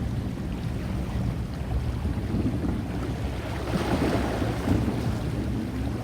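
Distant fireworks heard as low rumbling booms, with wind buffeting the microphone; a broader swell of sound about four seconds in.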